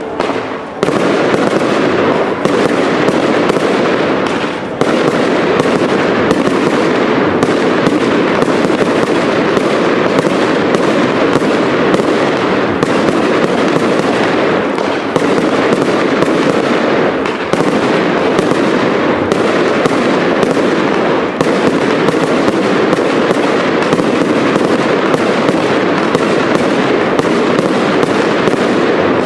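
Aerial fireworks display: rapid, continuous bangs of bursting shells mixed with crackling stars, loud and without a break.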